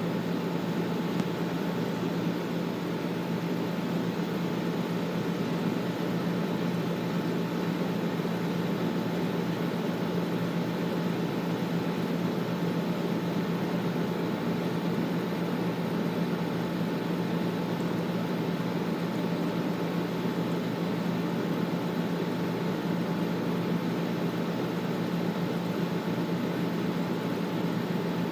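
Air conditioner running steadily: an even fan-and-airflow rush over a constant low hum.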